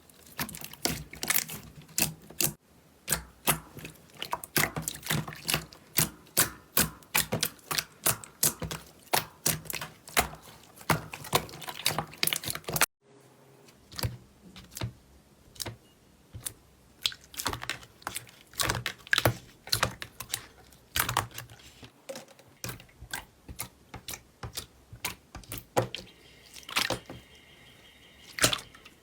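Slime being pressed and worked by hand, giving a run of sharp, crisp clicks and pops, roughly three to five a second. The sound breaks off abruptly twice.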